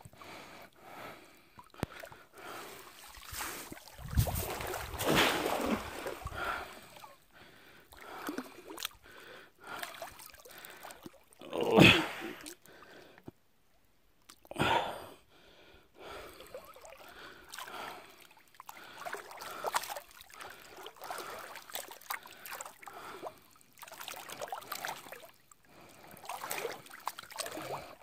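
Shallow water sloshing and swishing around a person's legs as he wades, in uneven surges with a few louder splashes, the loudest about twelve seconds in, along with his breathing.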